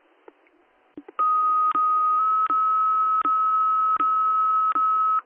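Fire dispatch radio alert tone over a scanner feed: after a click of the transmitter keying, a steady beep-like tone holds for about four seconds, marked by a sharp click about every three-quarters of a second. It is the attention tone sent before the dispatcher re-broadcasts a structure-fire call.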